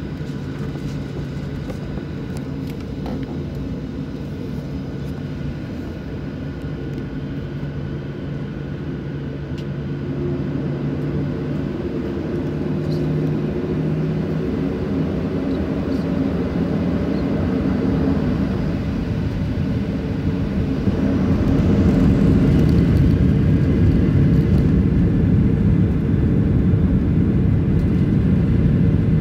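Boeing 737-700's CFM56-7B jet engines heard from inside the cabin, first a steady low hum at taxi power. About two-thirds of the way through they spool up with a faint rising whine into a much louder, steady rumble, the thrust being set on the runway.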